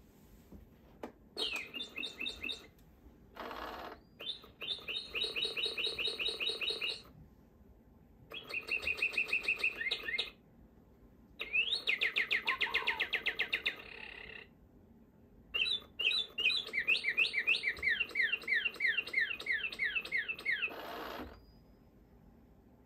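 Animated toy cardinal in a novelty Christmas birdhouse playing recorded birdsong through its small speaker: five phrases of rapidly repeated whistled chirps and slurred notes, with pauses between. Short bursts of hiss-like noise come between some phrases and once more near the end.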